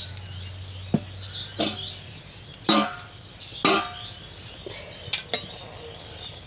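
A handful of sharp metallic clanks and knocks of kitchen utensils, the two loudest a little under three and four seconds in, each ringing briefly, over a steady low hum.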